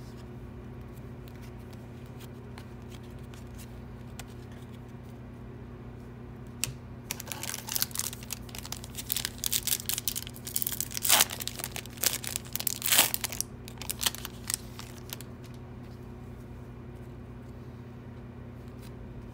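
A foil baseball card pack wrapper (2021 Topps Update) being torn open and crinkled by hand: a run of sharp ripping and crackling from about 7 to 15 seconds in, loudest near the middle.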